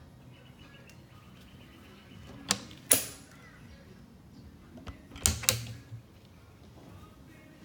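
Doors of a plastic tackle-storage cabinet being unlatched and swung open by hand. Two sharp clicks come about half a second apart, then a second cluster of clicks and knocks follows a couple of seconds later.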